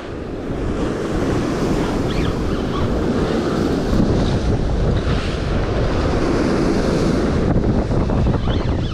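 Strong wind buffeting the microphone over the sea surging and washing against the rocks, a steady rushing noise.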